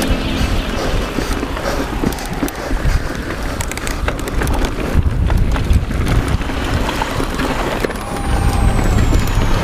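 Mountain bike riding over a dirt forest trail, heard from a camera on the handlebars: wind buffeting the microphone and the tyres rumbling over the ground, with frequent clicks and knocks of the bike rattling over bumps.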